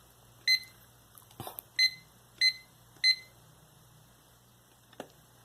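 Miniso square LCD alarm clock giving four short, high beeps a second or less apart as its setting buttons are pressed, with a brief rustle of handling between the first two and a faint click near the end.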